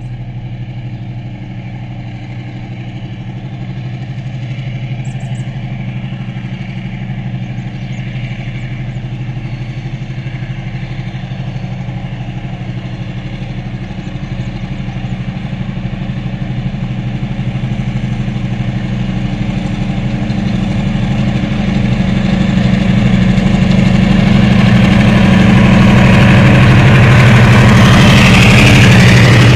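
Diesel train approaching, its engine's steady drone growing louder throughout. Over the last few seconds, wheel and rail noise builds as the carriages pass close by.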